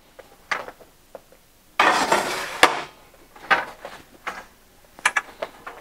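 Aluminium boom and metal fittings of a Van Mark Trim-A-Table TAT60 clattering and knocking as the boom is laid on the folded-down table. There is a longer rattle about two seconds in that ends in a sharp click, then a few separate knocks.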